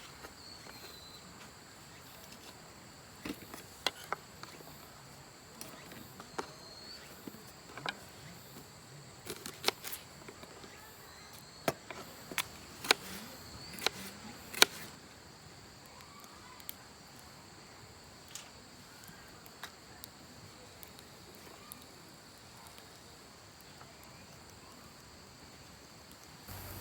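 A steady, high-pitched chorus of insects singing, with scattered sharp clicks and knocks that cluster around the middle.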